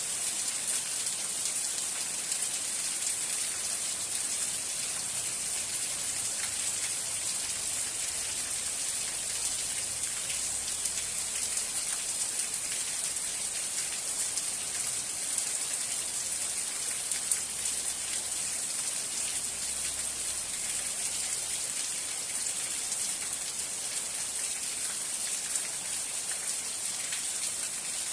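Steady rain falling: a dense, even hiss of many drops, with a few louder single drops standing out now and then.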